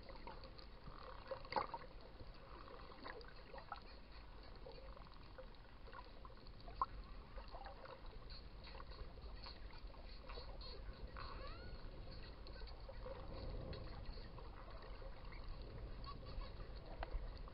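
Spinner dolphins heard underwater: several short whistles, one rising about two-thirds of the way through, and a few sharp clicks over a low rumble of water.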